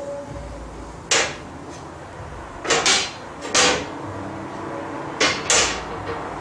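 Metal doors of a wood-fired clay brick oven being swung shut and closed up, six sharp metal clanks spread over several seconds, some in quick pairs.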